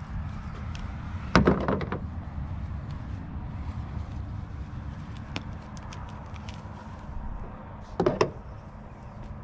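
Two short clattering knocks of metal shears on a plastic truck bed liner, one about a second in and one near the end, as one pair is set down and another picked up. A steady low rumble runs underneath.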